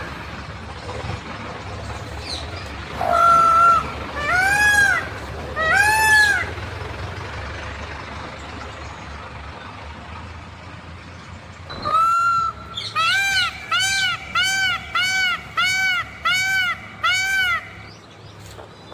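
Peacock (Indian peafowl) calling with loud, arched honking calls: three a few seconds in, then after a pause a quick run of about nine, roughly two a second, over a steady low hum.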